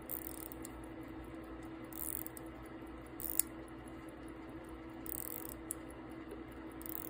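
Faint ratcheting clicks and rubbing of a vintage manual-wind watch's crown being turned clockwise to wind the mainspring, in short strokes about every second or two.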